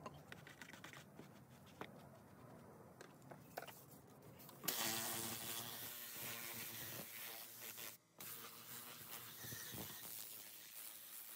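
A detailing brush scrubbing faintly on a truck's door panel, then about four and a half seconds in a compressed-air gun on an air hose comes on with a loud steady hiss as it blows the panel down. The hiss drops out for a moment near eight seconds and starts again.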